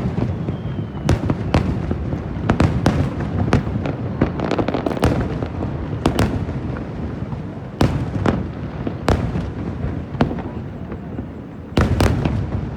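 Aerial firework shells bursting in quick, irregular succession: many sharp bangs over a continuous low rumble, with the heaviest bangs about two-thirds of the way through and near the end.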